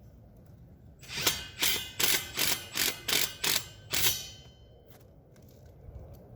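Hand socket ratchet clicking in about eight quick strokes, about three a second, as it turns a Tapcon concrete screw.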